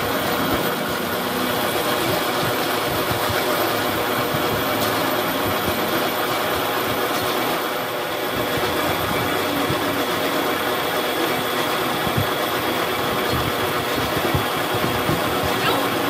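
Metal lathe running steadily while a boring bar cuts inside a steel tube, a continuous machine noise with a few faint steady tones.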